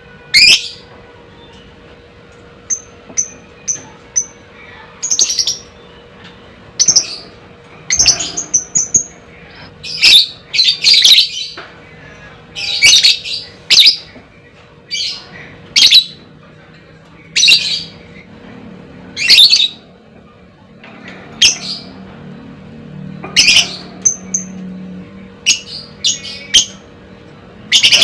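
Lovebird calling with loud, shrill, short squawks and chirps about once a second, with a quick series of small high pips in places.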